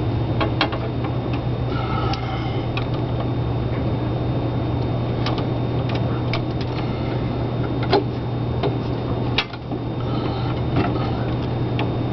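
A steady low hum throughout, with scattered light clicks and taps of an insulated ground wire being handled and fed into a metal breaker panel box.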